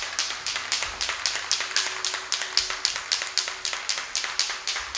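Aerosol can of spray primer being shaken, its mixing ball rattling in a steady rhythm of about four or five clacks a second as the primer is mixed before spraying.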